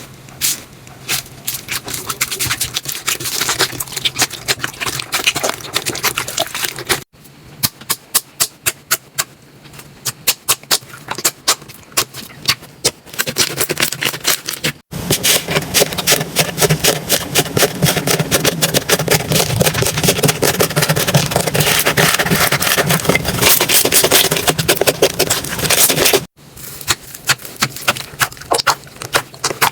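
Slime being squeezed, stretched and pressed by hands, making dense, irregular popping and crackling clicks. The sound cuts abruptly three times as one slime clip gives way to the next.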